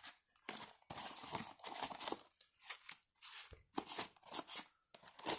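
Cardboard and plastic packaging of a trading-card box being handled: irregular rustling and crinkling with short taps and clicks, stopping and starting.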